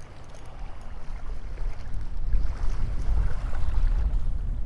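Strong wind buffeting the microphone: a low rumble that grows louder about two seconds in.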